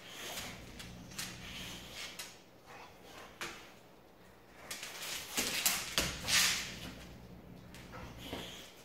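A boxer dog's claws clicking and paws scuffling on a hard plank floor as it moves around, nosing and grabbing a plush toy. The clicks and knocks are scattered, with a busier cluster of louder knocks and scuffles about five to six and a half seconds in.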